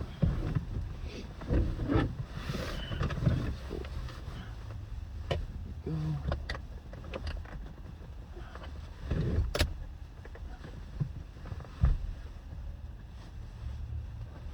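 Handling noises as a car headrest is worked into place: scattered knocks, clicks and rustling over a low rumble.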